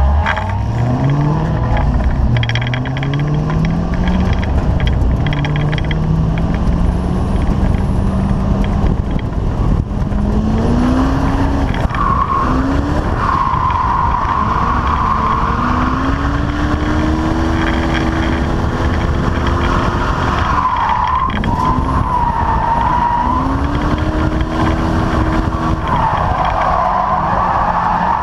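Holden VY One Tonner's engine revving hard, its pitch climbing repeatedly through the first few seconds. From about halfway through, the rear tyres squeal in long wavering stretches as the ute drifts sideways, with the engine held high underneath.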